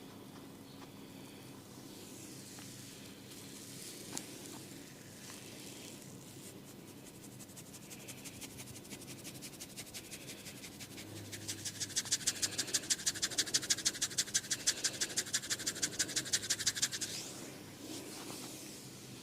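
Fingers scratching and rubbing hair against the scalp during a head massage: soft rustling at first, then a fast, even run of scratching strokes, several a second, that turns loud about halfway through and stops abruptly a couple of seconds before the end.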